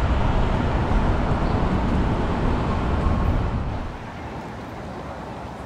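City street noise: a steady low rumble of traffic with no speech. It drops suddenly to a quieter background about four seconds in.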